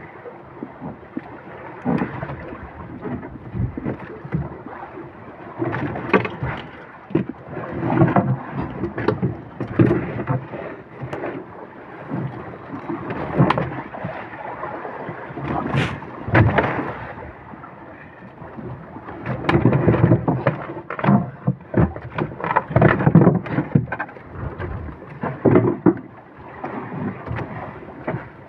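A freshly caught tuna thrashing beside and against a small boat, its tail beating to give irregular thumps and splashes of water, with loud bursts about six seconds in and again for several seconds past the twenty-second mark.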